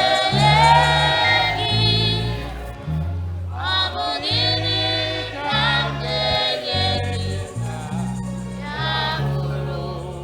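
Church congregation singing an Igbo gospel praise song with a held, swelling vocal line, over a band's bass notes that step from one pitch to the next.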